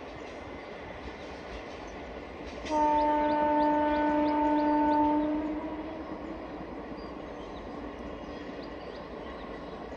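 Passenger train's locomotive horn sounding one long blast of about three seconds, a few seconds in, over the steady rumble of the train running along the track.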